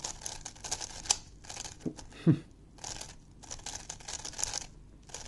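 Plastic Megaminx puzzle faces being turned quickly by hand in a run of moves: short bursts of rasping, clicking plastic with brief pauses between them. About two seconds in there is a brief low sound.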